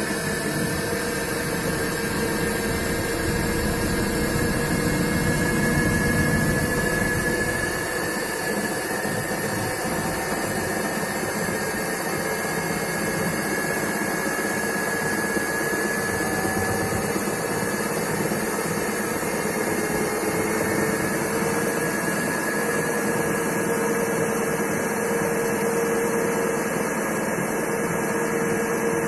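IFB Elena washing machine motor running with a steady hum and whine: two held tones over a constant rushing noise. The noise comes from a failed motor bearing.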